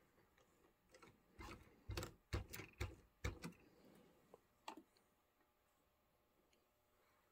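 A string of small clicks and knocks as a bare model locomotive chassis is handled and set on the track, then near quiet with no motor heard running.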